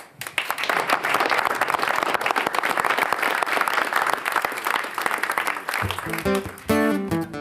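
Audience applause for about the first six seconds, dying down, then acoustic guitars begin picking the opening of a song.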